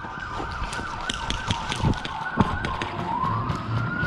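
A siren wailing, its pitch rising about three seconds in and then holding steady, with scattered sharp cracks of airsoft gunfire.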